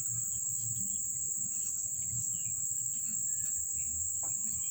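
Steady high-pitched insect chirring, with a low rumble underneath.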